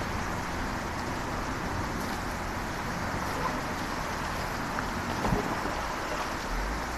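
Dump truck's diesel engine running steadily at a distance, under a steady outdoor hiss, with one short knock about five seconds in.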